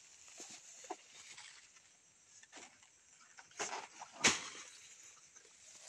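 Tall grass and banana leaves brushed and swished as a man pushes through them with a long-handled hooked blade. There are a few short rustles and one sharper, louder crack about four seconds in.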